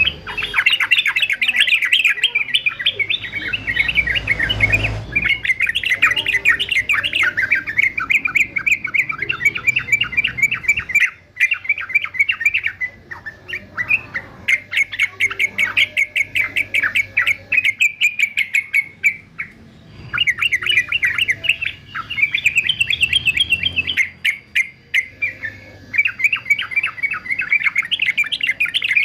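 Male yellow-vented bulbul (trucukan) singing in long runs of rapid chattering notes. Each run lasts several seconds, with short pauses between runs.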